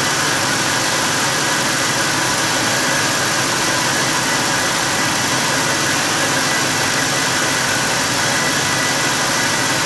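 1997 Ford F-150 engine idling steadily, heard from over the open engine bay.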